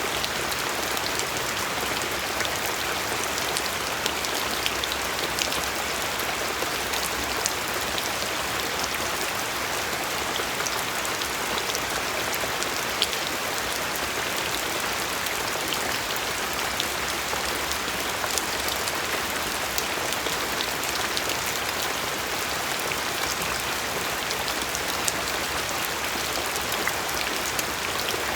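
Steady rain falling on a surface, a continuous hiss dotted with many small sharp drop ticks.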